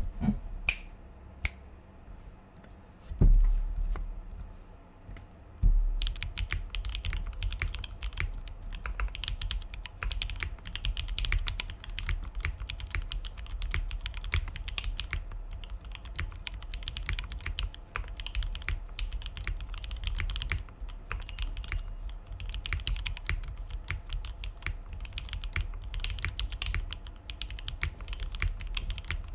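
Mechanical keyboard typing on a Mekanisk Klippe T: Alpaca linear switches, lubed with Krytox 205g0 and filmed, on a carbon fiber plate, with GMK Nautilus keycaps. A few single key presses and two heavy low thumps come in the first six seconds, then steady fast typing.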